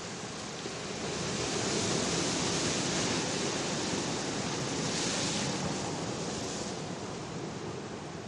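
Sea surf washing onto a beach, a steady rush of wave noise that swells about a second in and eases off near the end.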